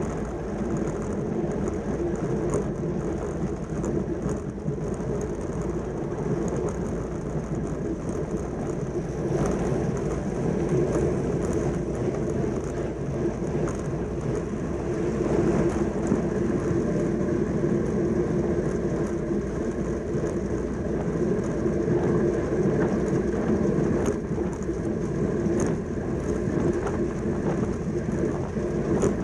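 Steady rush of wind on the microphone mixed with the tyre rumble of a track bicycle riding at race speed. It runs unbroken, its loudness rising and falling a little.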